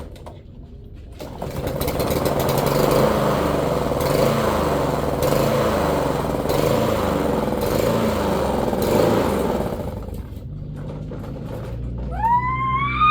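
Lawn mower engine running, loud and steady for most of the stretch, then easing back about ten seconds in. Near the end a high-pitched wail rises and falls over the engine.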